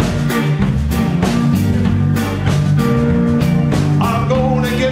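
Live blues band playing an instrumental stretch: electric guitars and electric bass over a steady drumbeat.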